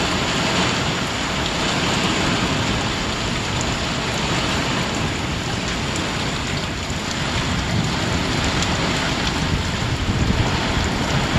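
Thunderstorm: heavy rain pouring steadily, with thunder rumbling nonstop underneath, a little stronger near the end.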